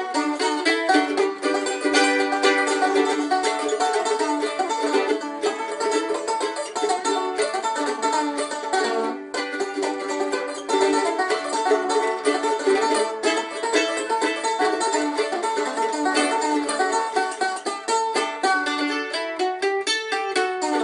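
Banjo playing a fast tune of rapidly picked notes, with a short break about nine seconds in.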